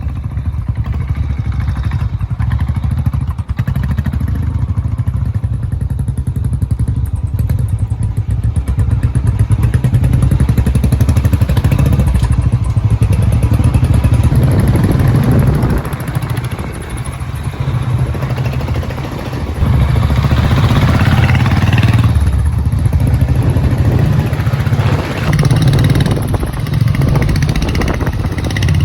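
Royal Enfield Bullet's single-cylinder four-stroke engine running with a heavy low thump, its level dipping briefly a couple of times.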